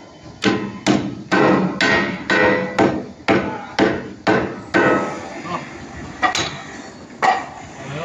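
Hatchet knocking against an ALC (autoclaved aerated concrete) wall panel and its steel angle to tap the panel into line. About ten sharp knocks at roughly two a second, then two more spaced-out knocks near the end.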